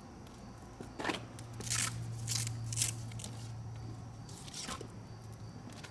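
Velcro fastenings on fabric windshield wiper covers being ripped open, several short rasping tears about a second apart, over a steady low hum.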